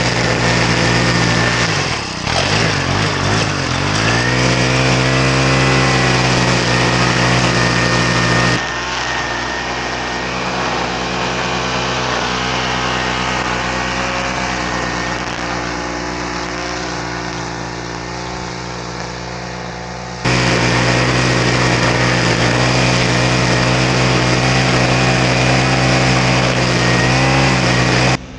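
Small gasoline engine of lawn equipment running at full throttle. Its speed sags and recovers about two seconds in. The sound changes abruptly twice, becoming quieter about a third of the way in and returning to full level past two-thirds.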